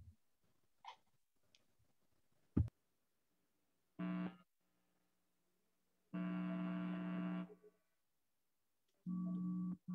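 Steady electrical buzz cutting in and out three times: a short burst, then one of about a second and a half, then one of under a second. A sharp click comes before the first.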